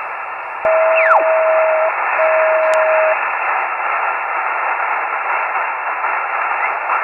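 Amateur radio transceiver in upper-sideband mode on the 2 m satellite downlink, hissing with receiver noise while being tuned. About half a second in there is a click and the hiss gets louder. A signal sweeps quickly down in pitch, and a steady tone sounds twice, about a second each.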